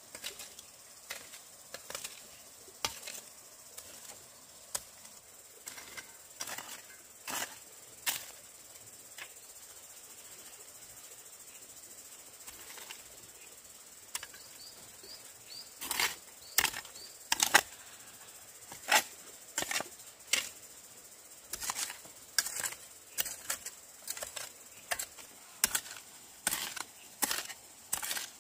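A series of sharp knocks, one or two a second, with a quiet stretch of several seconds in the middle. A faint steady high insect buzz runs underneath.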